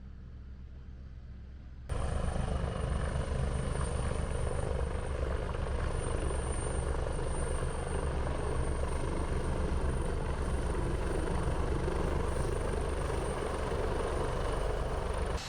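Jet airliner flying low overhead: loud, steady engine rumble with a thin high whine, starting abruptly about two seconds in and cutting off suddenly near the end.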